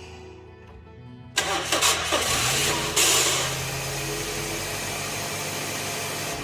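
Toyota Probox being started, with an abnormal noise from its starter motor: about a second and a half in the starter cranks with irregular rough spikes, the engine catches with a burst of revs about three seconds in, then settles to a steady idle.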